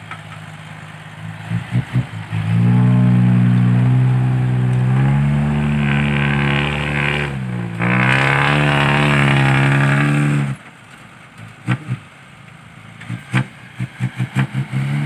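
Loaded dump truck's diesel engine held at high revs under heavy load while reversing through soft sand: a loud, steady drone starting about two seconds in, growing harsher about halfway, dipping briefly, then dropping off abruptly about ten seconds in. Quieter engine running with a few short thumps before and after.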